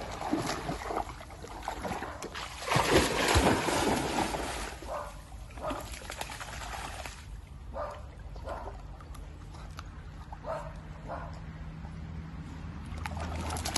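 English cocker spaniel wading and splashing through a shallow stream, loudest about three seconds in, then a run of smaller, intermittent sloshes as it moves and noses through the water.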